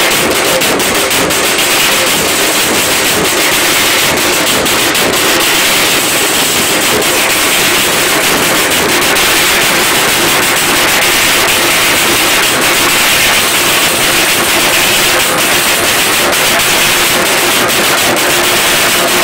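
Drums beaten hard with sticks, a continuous loud din of sharp cracking beats that overloads the recording.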